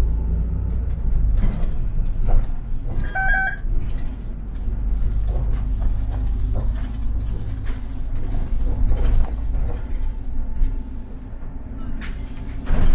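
City bus heard from inside the cabin: the engine running with a low rumble and loose rattles and knocks, a short electronic beep about three seconds in, and a burst of noise near the end.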